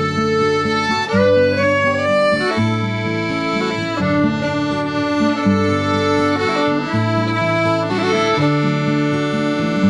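Instrumental background music: a traditional-style tune led by accordion, its held chords changing about every second, with fiddle.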